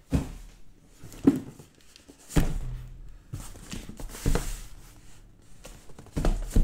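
A cardboard shipping box being set down and shifted on a desk: several dull thumps spread out over the stretch, with a brief scraping rustle between them.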